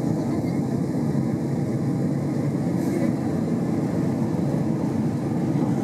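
Steady low cabin roar inside a Boeing 767-300ER in flight: engine and airflow noise heard through the fuselage.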